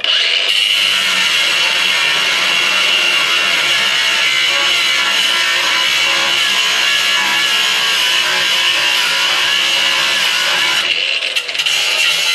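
Cordless angle grinder cutting through metal, a steady whine over a grinding hiss that starts abruptly and wavers near the end.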